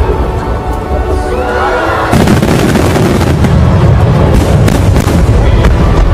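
Aerial fireworks booming and crackling over music, the bursts thickening into a dense barrage about two seconds in.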